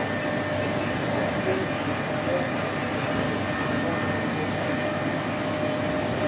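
Steady running noise inside a Mark 3 coach of an InterCity 125 (HST) travelling at speed: wheels rolling on the rails, with a few faint steady tones over the even rumble.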